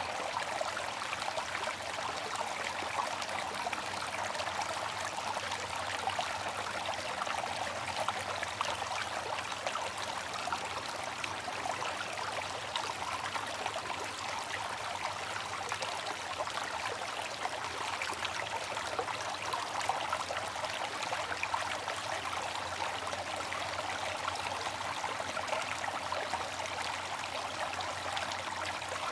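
Bamboo water fountain running: water trickling and splashing steadily and without pause.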